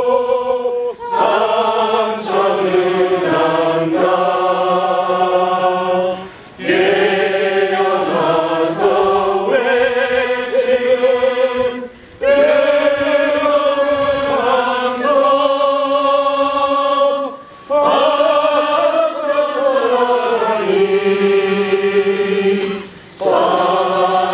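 A choir singing slowly in long held chords, with short pauses between phrases about every five or six seconds.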